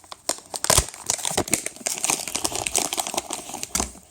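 Crinkly wrapper of a packet of sour peach Puré gummies crackling as it is handled and opened, a dense run of irregular crackles with a few louder ones.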